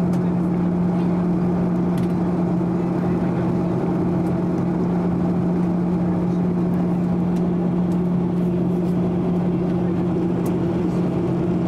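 Cabin noise inside a Boeing 737-800 in flight: the steady drone of its CFM56-7B turbofan engines and the rush of air over the fuselage, with a constant low hum.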